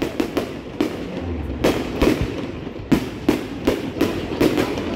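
Aerial fireworks shells bursting overhead: an irregular series of sharp bangs and pops, about three a second.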